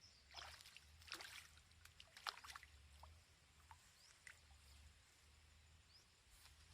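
Near silence with a few faint splashes of water in the first few seconds, and a few short, high rising chirps later.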